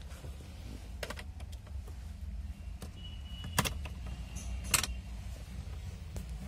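A few sharp clicks from the Toyota Crown's light and indicator switch stalk being worked: one about a second in and two louder ones near the middle. A faint high steady tone sounds between the last two, over a low steady rumble.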